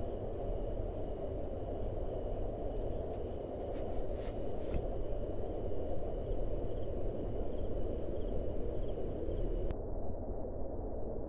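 Night insects, crickets, chirring as a steady high-pitched trill over a low background hiss. The insect sound cuts off suddenly near the end.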